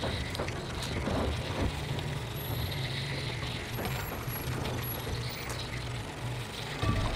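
A mechanism clicking and rattling irregularly over a steady low hum.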